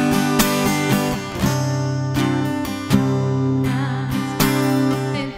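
Acoustic guitar strumming chords in an instrumental passage of a Christian song, with no singing.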